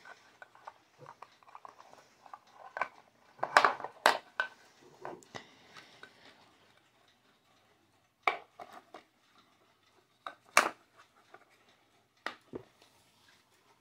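Plastic folding case of a quartz travel alarm clock being handled and pulled apart: scattered clicks and knocks, a dense cluster a few seconds in, then a few single sharp knocks as the parts are set down on a wooden table.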